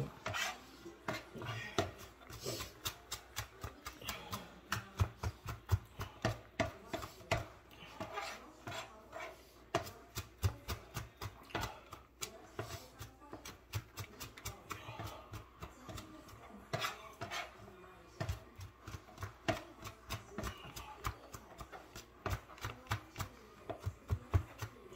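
Knife chopping on a cutting board: sharp knocks, a few a second and uneven in rhythm, with short lulls between runs of strokes.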